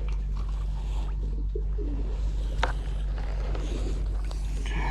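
Pigeons cooing faintly over a steady low hum, with a single sharp click about two and a half seconds in.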